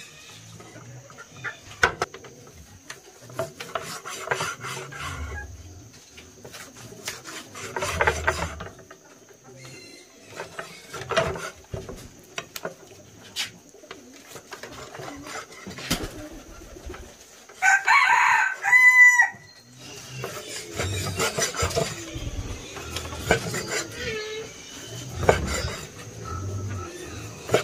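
A rooster crows once, loud and under two seconds long, about eighteen seconds in, among scattered knocks and rustling.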